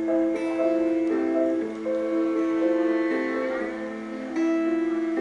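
Background music: held instrumental notes, with the chord changing every second or so.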